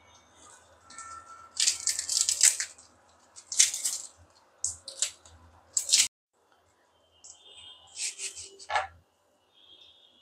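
Charred skin of a fire-roasted green mango crackling and crumbling as fingers peel it off, in several short crisp bursts, with a brief silent gap a little after six seconds in.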